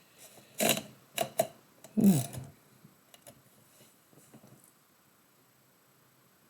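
A few irregular sharp clicks and small knocks in the first couple of seconds. A brief low voice sound comes about two seconds in, then only a few faint ticks.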